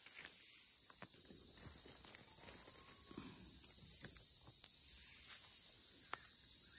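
Steady, high-pitched insect chorus droning without a break, with a few faint clicks and rustles underneath.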